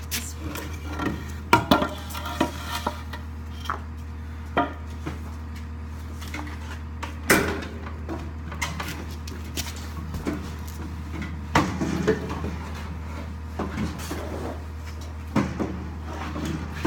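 Scattered knocks and clatters of wooden boards being handled and set down against metal and concrete, a few sharp ones louder than the rest, over a steady low hum.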